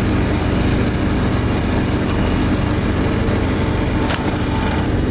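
Truck engine idling steadily, a low even hum, with a faint tick about four seconds in.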